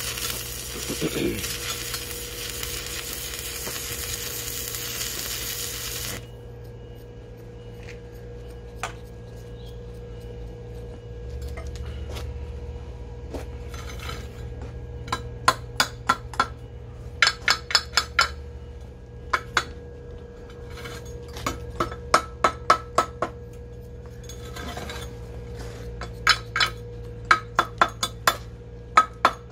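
Quick runs of light, ringing metal clinks and taps, several strikes at a time, coming in bursts through the second half. A steady hiss in the first six seconds cuts off suddenly, and a faint steady hum runs underneath.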